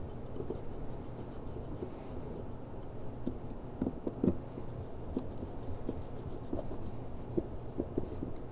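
A screwdriver turning the screws that hold the top back onto a small-engine carburetor: small scratchy clicks and scrapes of metal on metal, with a few louder taps about four seconds in, over a steady low hum.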